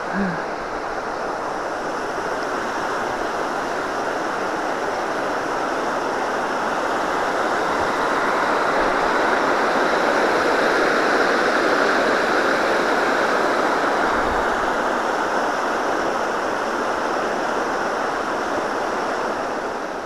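Water rushing over a river weir, a steady churning of white water that grows louder toward the middle and eases off near the end.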